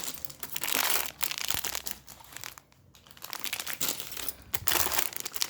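Jewellery packaging being handled and unwrapped, crinkling in irregular bursts with a short lull in the middle.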